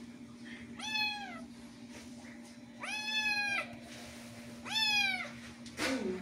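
Tabby kitten meowing three times, about two seconds apart: high calls that rise and then fall in pitch, followed by a shorter call falling in pitch near the end. A steady low hum runs underneath.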